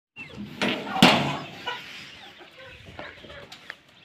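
Sliding bolt on a sheet-metal coop door drawn back with two loud metallic clanks, about half a second and a second in, then chickens clucking as the door opens.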